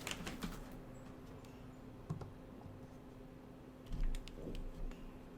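Scattered light clicks and taps of small parts and tools being handled on a workbench, a few near the start, one about two seconds in and a cluster near the end, over a faint steady hum.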